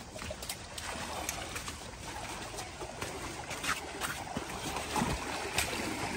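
Small waves lapping and washing up on a sandy beach, with a few light footsteps of children's sandals on rock and sand.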